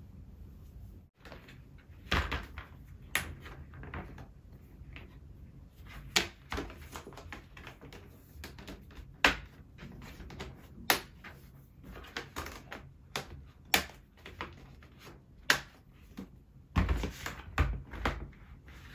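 Hard plastic clacks and knocks of white perforated stackable storage baskets being handled and set one on top of another. There are about a dozen separate sharp knocks, with a quick run of several near the end.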